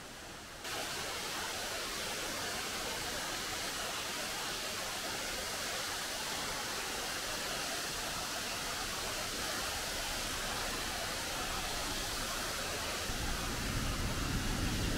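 Steady rush of water from a fast-flowing mountain stream and waterfall. It jumps louder about a second in, and a low rumble joins it near the end.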